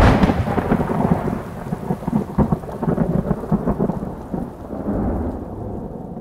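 Thunder-like rumble sound effect on a logo intro: a loud crack at the start, then a crackling rumble that slowly fades out.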